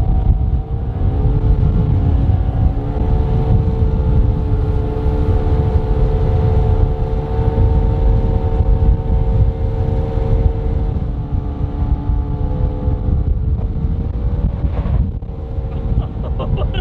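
Jetboat engine running steadily on the river, its pitch stepping up a couple of times early on as the throttle is opened, with strong wind buffeting the microphone throughout.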